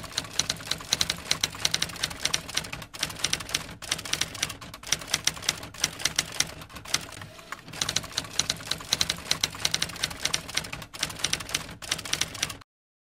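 Typewriter sound effect: rapid clacking keystrokes, pausing briefly a little past seven seconds in, then stopping abruptly near the end.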